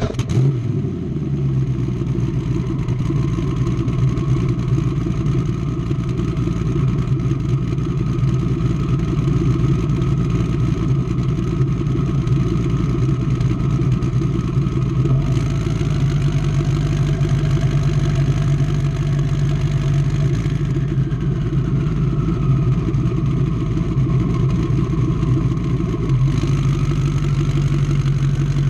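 A 1600-plus horsepower twin-turbo V8 race boat engine, freshly started, running steadily at idle. Its note shifts slightly a few times: about halfway, about two-thirds of the way, and near the end.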